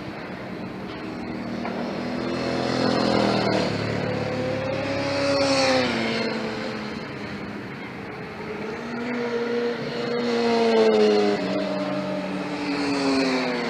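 Sport motorcycles on a race track passing one after another at speed, engines revving high, each swelling in loudness and falling in pitch as it goes by.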